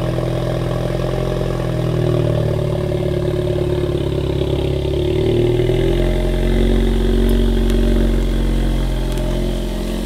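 2019 Ford Mustang EcoBoost's turbocharged 2.3-litre four-cylinder running at low revs as the car reverses slowly, its pitch wavering a little in the middle.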